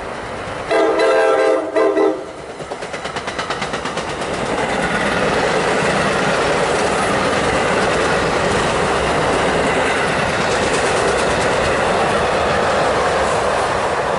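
NJ Transit push-pull commuter train of MultiLevel double-deck coaches passing close by on the main line. Its horn sounds a long blast then a short one about a second in. Wheels then click over the rail joints and build into a steady loud rumble as the coaches go past.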